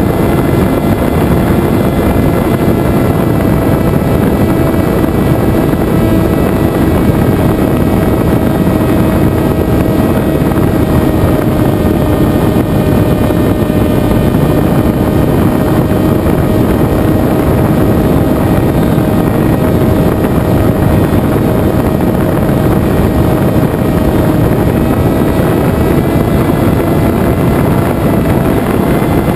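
Venturi FPV flying wing's motor and propeller in flight, picked up by the onboard camera: a steady whine over heavy rushing air noise, its pitch sagging a little midway and coming back up near the end.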